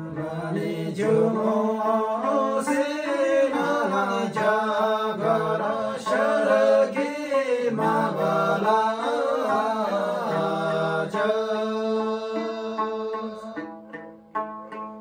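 Men singing a Tamang selo folk song together to a plucked tungna, a small skin-bellied Tamang lute; near the end the voices fall back and the lute's plucked notes come to the fore.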